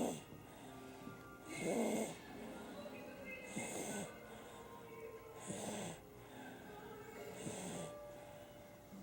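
A sleeping baby snoring, one snore about every two seconds.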